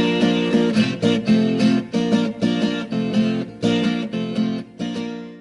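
Background music: a strummed guitar instrumental with chords struck in a steady rhythm, fading out near the end.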